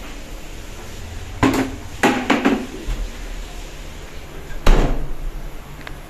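Handling knocks and clatter of a plastic toiletry bucket and its contents in a small tiled bathroom. There are several sharp knocks in a cluster about a second and a half in, and the loudest single knock comes near the end, over a steady background hiss.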